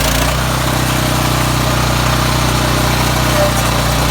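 Gasoline engine of a stump grinder running steadily at a constant speed.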